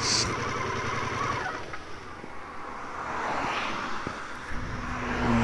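Harley-Davidson Pan America 1250's V-twin idling at a standstill, with car traffic queued around it.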